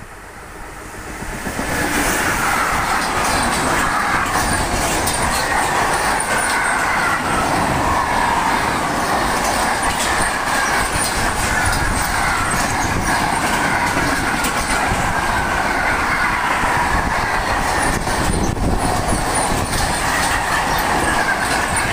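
Freight train hauled by an electric locomotive passing close by at speed. The noise swells sharply about a second in, then holds as a steady loud rumble of wagon wheels on the rails, with a faint, shifting high squeal running through it.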